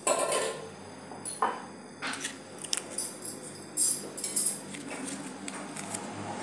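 Paper sachet of baking powder crinkling and rustling in short, irregular bursts as it is handled and shaken out over a bowl.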